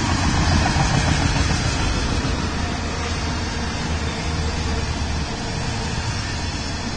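Union Pacific freight train's autorack cars rolling past, a steady noise of steel wheels on rail. A low hum underneath drops away about five seconds in.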